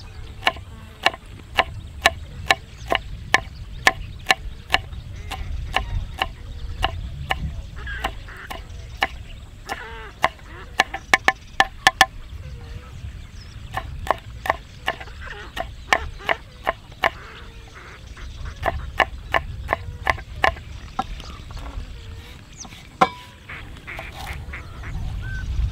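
A run of sharp taps, about two to three a second, with a quicker burst around ten to twelve seconds in and short pauses between runs. A low rumble of wind on the microphone runs underneath.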